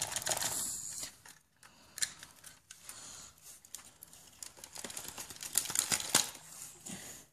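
Plastic clicking and rustling as wires and a circuit board are worked loose by hand from a plastic RC car chassis: scattered small clicks, with a run of louder clicks about six seconds in.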